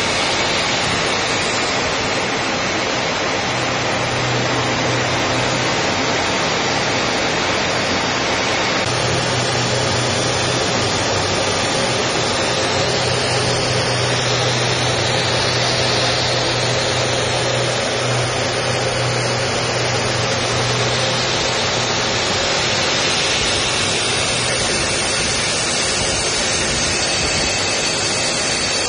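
Steady rushing noise of jet engines and airflow heard from inside the Su-30 fighter, even throughout, with a faint low hum fading in and out beneath it.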